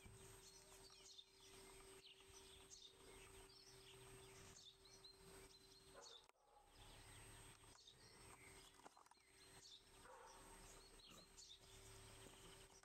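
Near silence: quiet outdoor ambience with faint, scattered bird chirps.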